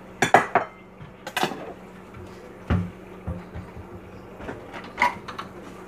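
Kitchen handling noises: a handful of separate knocks and clicks as a plate is fetched and set down on the countertop and a knife is laid down beside the cake, the loudest knocks near the start.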